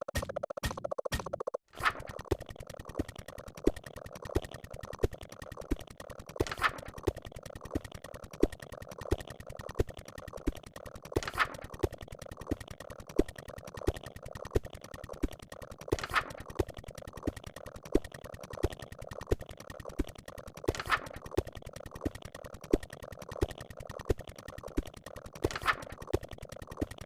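Cartoon boing sound effects fired in very quick succession, about ten a second, blurring into a buzzing, scratch-like stream. Louder hit effects punctuate it every fraction of a second, and a whoosh comes about every five seconds.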